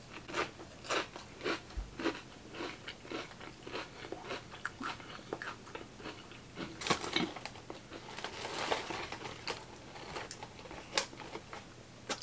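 A mouthful of Flamin' Hot Ruffles ridged potato chips being chewed, with crisp crunches about two or three a second.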